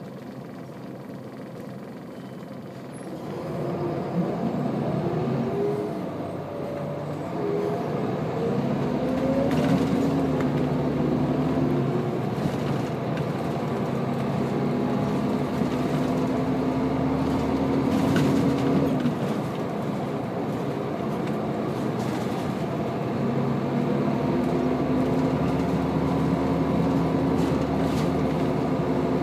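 Scania L94UB bus's diesel engine and ZF automatic gearbox, heard from inside the saloon. It idles quietly at first, then about four seconds in the bus pulls away and the pitch climbs through the gears with a whine. It runs at a steady pitch, eases off a little past halfway, and pulls again near the end.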